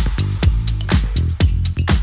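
Background dance music with a steady four-on-the-floor beat, bass and drums.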